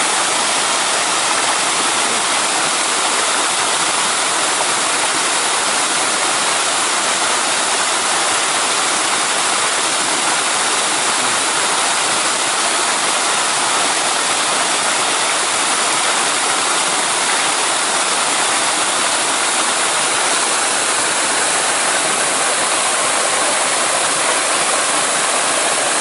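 Steady, unbroken rush of a waterfall and fast river water.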